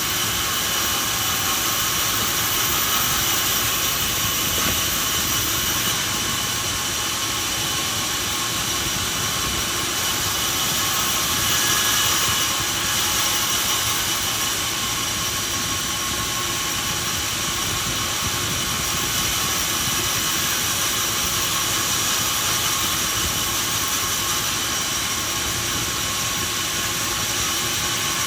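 Sawmill machinery running steadily: a continuous mechanical hiss and hum with several high, steady whining tones, holding at the same level throughout without distinct cutting strokes or impacts.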